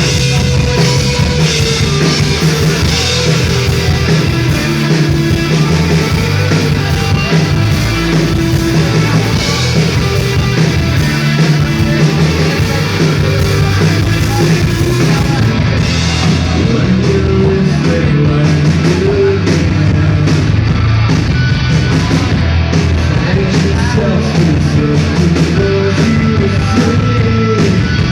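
Live band playing loud rock music.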